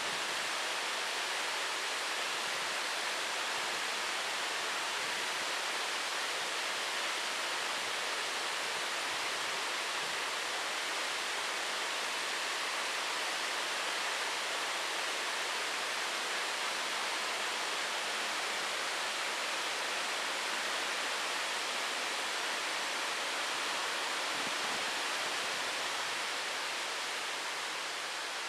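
Waterfall in full spate after heavy rain: a steady rush of falling water, easing a little near the end.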